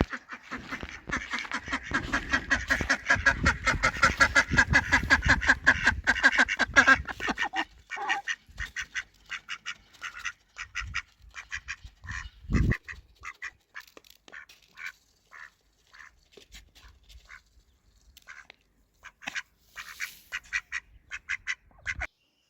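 A pair of ducks eating and quacking: a dense, rapid run of bill pecks and quacks for about eight seconds, then sparser pecks and calls. There is a single low thump about halfway through.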